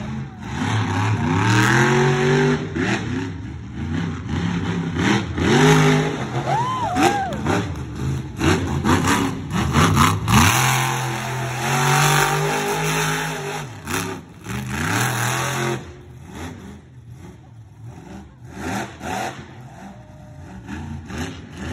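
Monster truck engine revving hard again and again, its pitch rising and falling, with sharp loud knocks among the revs; it drops to quieter running about two-thirds of the way through.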